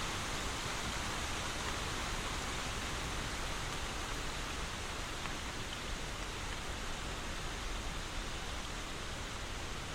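Steady rainfall, an even hiss of rain with no separate drops standing out.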